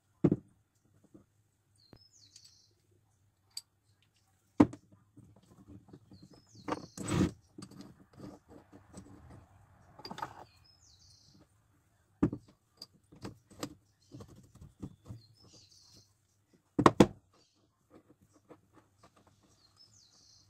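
Steel parts of a small home-made engraver's vise being handled and fitted together: scattered metal clicks and clinks, with a few sharp knocks as pieces are set down on a wooden floor, the loudest a double knock about three-quarters of the way through. Faint short bird chirps recur every few seconds in the background.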